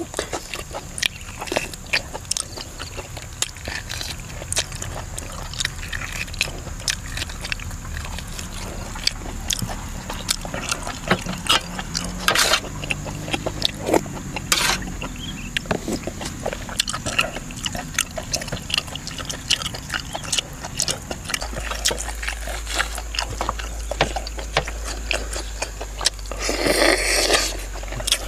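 A person eating by hand close to the microphone: many small wet clicks and smacks of chewing and tearing cooked fish, with a louder burst of noise about a second and a half before the end.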